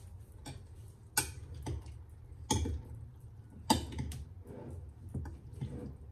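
A spoon clinking and scraping against a glass bowl while a salad dressed with yogurt is stirred: irregular sharp clicks, a few of them loud, over a low steady hum.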